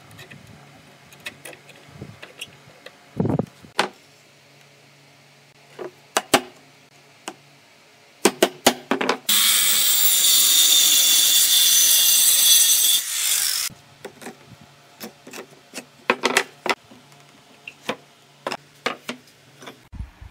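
Handheld electric circular saw cutting through a wooden panel: a loud, even whine-and-rasp that starts about nine seconds in and stops abruptly after some four seconds. Before and after it, scattered sharp knocks and clicks as a clamp is set and the wood is handled.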